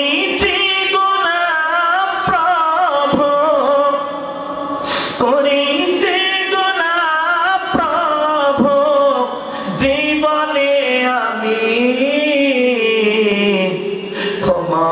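A man's voice chanting in long, ornamented melodic phrases with short breaths between them, the sung style of a Bengali waz sermon.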